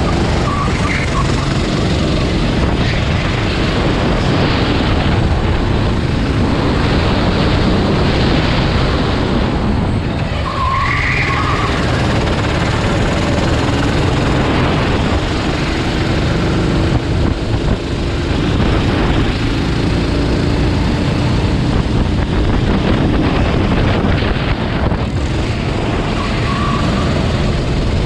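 Racing vehicles' engines running and revving, their pitch rising and falling as they pass, over a steady din of engine noise.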